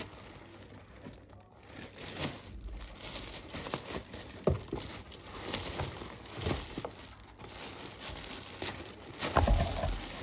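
Clear plastic bag crinkling and rustling in the hands as a neck and shoulder massager is pulled out of it, in irregular bursts with the loudest crackle near the end.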